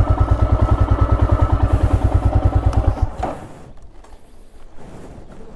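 Royal Enfield Himalayan's 411 cc single-cylinder engine idling with an even beat of about ten pulses a second, then switched off about three seconds in. Faint clicks and rustling follow.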